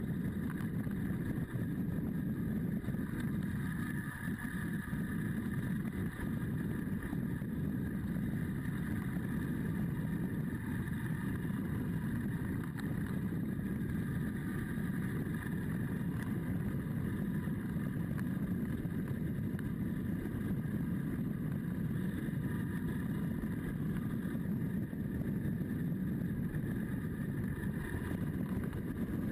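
Adventure motorcycle's engine running steadily at a cruise, mixed with wind and road noise, heard from a camera mounted on the bike.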